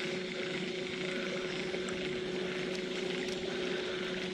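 Electric trolling motor on a bass boat running with a steady, even-pitched hum.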